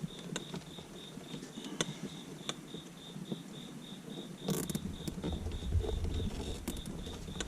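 Light clicks and rustles of hands tucking and zip-tying wiring in a car's interior, with a louder crackling rustle about four and a half seconds in and a low rumble after it. Under it, a steady high chirp repeats about five times a second, like a cricket.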